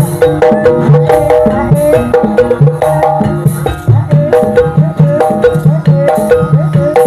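Gamelan accompaniment for ebeg: tuned percussion plays a fast, repeating melody over steady drum beats, with regular bright accents on top.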